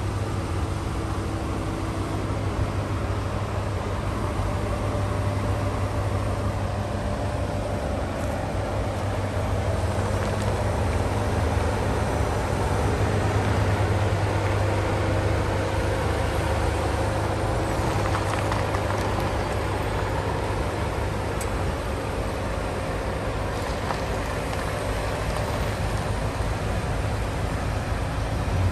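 Steady drone of a car being driven, heard from inside the cabin: a low engine hum with road noise, swelling slightly midway.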